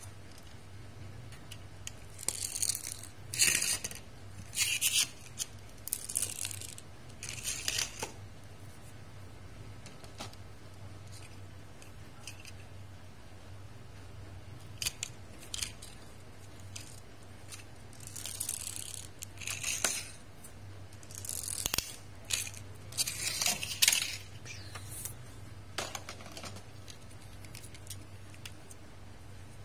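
Small die-cast toy cars being pressed down and run back and forth on a hard tabletop: their wheels and pull-back motors whir in short rasping bursts, about four in a row, then a pause with a few light clicks, then about five more.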